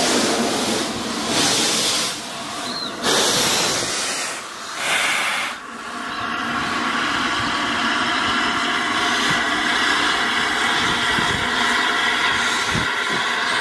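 LNER A3 Flying Scotsman steam locomotive working slowly with its cylinder drain cocks open: loud hissing blasts of steam in four surges about a second and a half apart, then a steadier hiss with the rumble of the train moving away.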